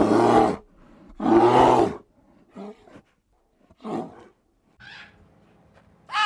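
An animal calling loudly twice, each call a little under a second long, followed by three fainter, shorter calls.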